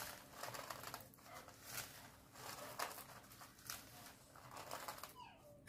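Chocolate shavings rustling and scraping against a plastic cake scraper as it is pressed onto the whipped-cream side of a cake: faint, soft rustles repeating roughly once a second.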